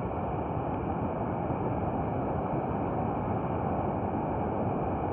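Ocean surf breaking and washing up the beach: a steady rush of water noise.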